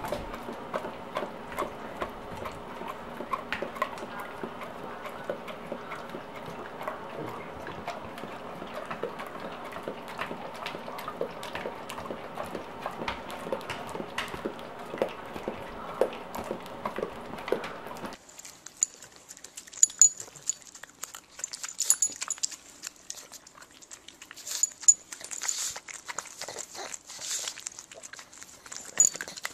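Dogs smacking and licking their mouths as they work at peanut butter stuck to their tongues and palates: a run of wet clicking smacks. Under the first dogs there is a steady hum; after a cut about two-thirds through, the smacks are sharper and more spaced out.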